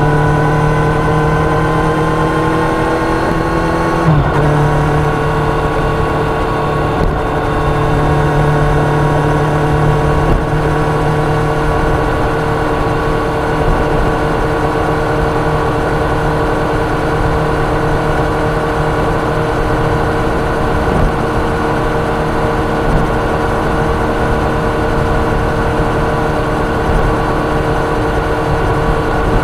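Kawasaki Ninja 1000's inline-four engine under way at expressway speed, with wind and road noise. Its note rises slightly for the first four seconds, breaks briefly, then holds steady.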